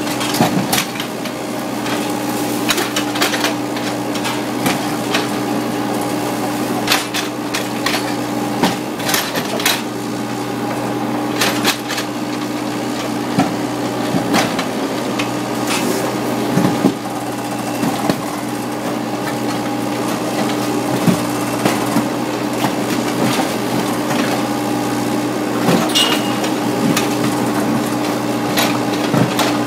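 Kobelco SK30SR mini excavator's engine running steadily while its mini crusher attachment bites into a concrete wall, with irregular sharp cracks and crunches of breaking concrete.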